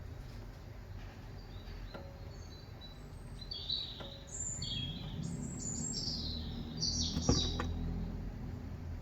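Small birds chirping and twittering in a quick run of short high calls, busiest from about halfway through, over a low steady background hum. A few sharp clicks sound too, the loudest a cluster about seven seconds in.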